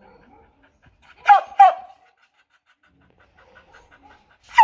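Hmong bobtail dog barking: two quick barks about a second in and another bark right at the end, with steady panting in between. These are attention-seeking demand barks rather than threatening ones, as her owner describes them.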